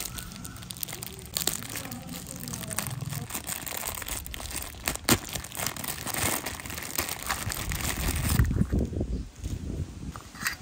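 Clear plastic wrap crinkling and crackling as it is pulled off a stack of miniature metal plates. Near the end come a few separate light clicks as the unwrapped plates are handled.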